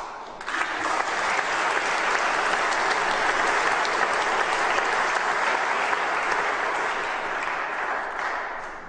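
Large seated audience applauding, the clapping starting about half a second in, holding steady, then dying away near the end.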